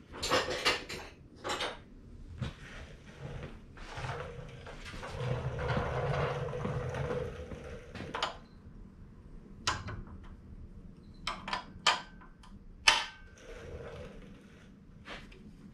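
Metal clinks and knocks as a wrench is worked on the cylinder-head bolts of a small snowblower engine. There are a few sharp clicks near the start, a longer rustling stretch in the middle, and a run of sharp clinks in the last few seconds.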